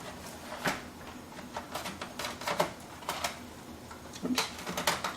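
Laptop DVD-ROM drive's plastic casing clicking and scraping against the drive bay as it is slid in, a string of irregular light clicks and taps.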